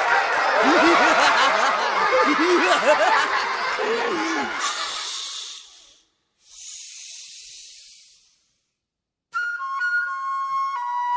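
Many voices laughing and chattering over one another for about four and a half seconds. Two brief whooshes of hiss follow, then a moment of silence, and flute music begins about nine seconds in.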